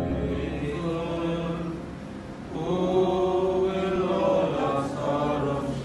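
A small congregation singing a hymn together in slow, held notes; the singing dips about two seconds in, then swells again.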